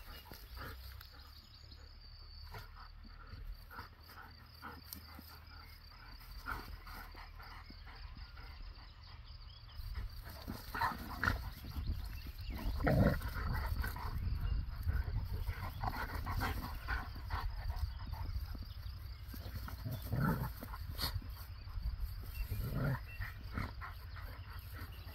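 Two dogs, a Bernese Mountain Dog and a Belgian Shepherd, growling in play as they wrestle, in several short bouts that come mostly in the second half.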